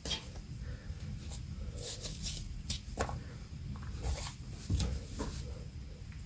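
Scattered soft rustles and scrapes of denim fabric being handled, short separate strokes over a low steady hum.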